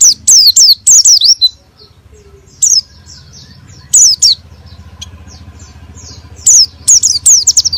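Pleci (white-eye) singing in bursts of quick, high, down-slurred notes. A rapid run opens the passage, then short single bursts with pauses between, and another rapid run near the end.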